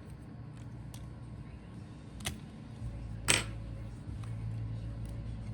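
Two sharp clicks, about two and three seconds in, the second louder, over a low steady hum: small hand tools or laptop parts being handled during disassembly.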